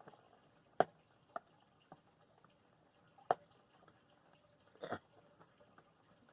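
A handful of light, sharp clicks and taps a second or so apart, with a small cluster near the end: a cardboard board-game box being handled and opened.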